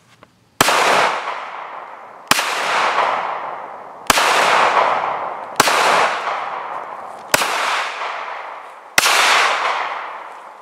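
Ruger LCP II .380 ACP pocket pistol fired six times at a steady pace, a shot about every one and a half to two seconds, each crack trailing a long echo that dies away. The sixth shot empties its six-round magazine and leaves the slide locked back.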